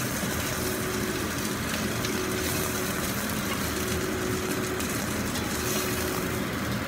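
Chicken thigh steaks sizzling steadily in a frying pan, with a steady mechanical hum underneath.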